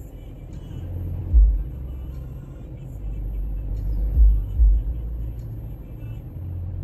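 Steady low rumble inside a car, with dull thumps about a second and a half in and twice around four seconds in, under faint music from the video playing on the mirror's screen.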